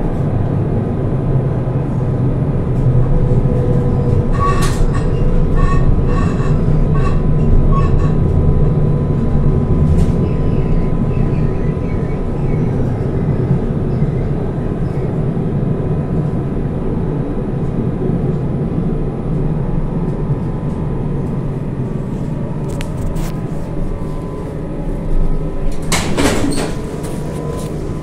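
Interior of an Alstom tram running on its line: a steady low rumble of the running gear with a faint electric hum, easing off gradually as the tram slows for a stop. About five seconds in comes a run of short, evenly spaced high beeps, and near the end a short loud burst of noise.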